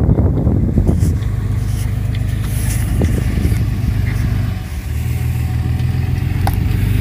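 Engine of a 3/4-ton pickup truck running steadily as it tows a loaded boat trailer forward through loose sand, with a brief drop in engine sound about two-thirds of the way through.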